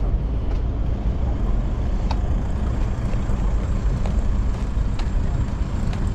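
A motor vehicle engine running steadily, a continuous low rumble with a few faint ticks over it.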